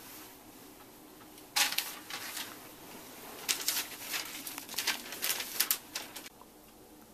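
A folded sheet of notebook paper being handled and unfolded, crinkling and rustling in a run of sharp bursts that starts about a second and a half in and stops about a second before the end.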